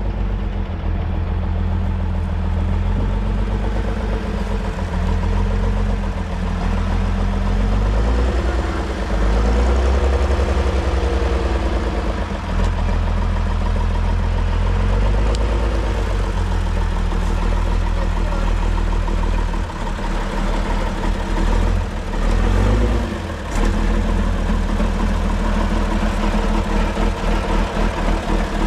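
Praga V3S six-wheel-drive trial truck's engine working under load as it crawls over rough ground, its revs rising around eight seconds in and again briefly a little past twenty seconds, with quick throttle pulses near the end.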